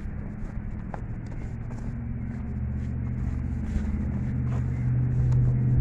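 A motor vehicle's engine rumbling, growing louder over the last few seconds as it draws near.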